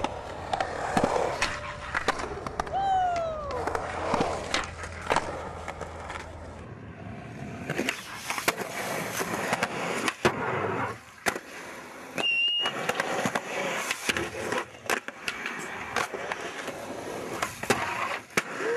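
Skateboard wheels rolling on concrete, with many sharp clacks of the board popping, landing and striking ledges and coping.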